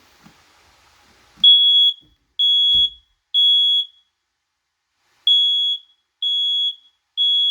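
Smoke alarm's piezo horn sounding its temporal-three evacuation pattern: three high, shrill beeps of about half a second each, a pause, then three more.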